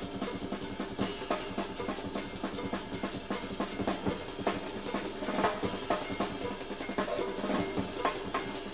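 Live band music from a 1975 recording, the drum kit loudest with busy, rapid drumming throughout. The sound is thin, with almost no deep bass.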